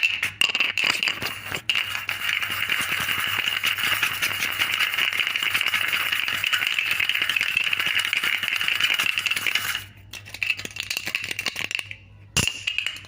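Plastic bottle cap clicking and rattling against a hard surface. A few separate clicks are followed by about eight seconds of fast, continuous rattling that stops abruptly. Then come a few scattered clicks and one sharp click near the end.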